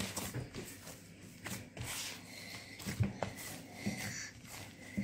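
Hands kneading a soft, wet yeast dough in a large bowl: irregular soft thumps and rubbing as the dough is pushed, folded and pressed against the bowl.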